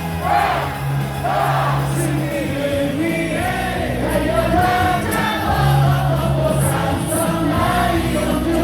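Baseball stadium crowd singing a cheer song in unison along with amplified music.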